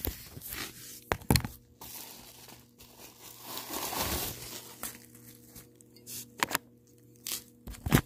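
Packaging wrap crinkling and tearing as a glass tulip lamp shade is unwrapped by hand, with several sharp knocks and a longer stretch of rustling about four seconds in.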